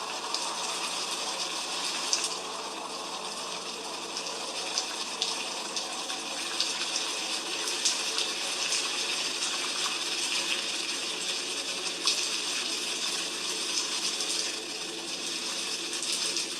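Steady heavy rain: a dense hiss of falling water with scattered sharper ticks of individual drops hitting a hard surface.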